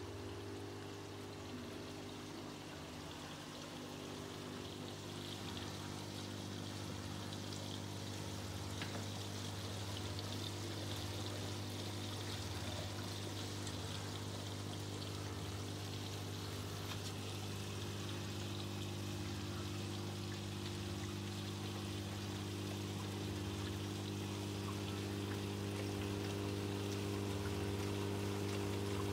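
Aqua One MariSys 240 marine aquarium running: a steady pump hum with water pouring and trickling through the filtration. It grows a little louder near the end.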